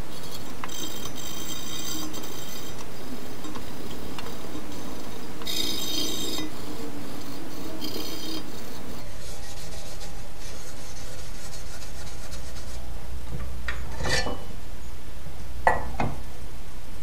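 Stainless steel buckler dome being scrubbed by hand with a pad, in several scratchy back-and-forth bursts. It is followed by quieter handling of sheet metal, with two sharp clinks near the end.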